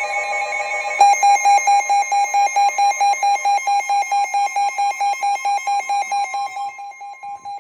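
NOAA Weather Radio alert tone sounding for a tornado warning. A steady electronic tone comes first, then from about a second in a rapid beeping, about four beeps a second, over a held tone. It gets quieter near the end.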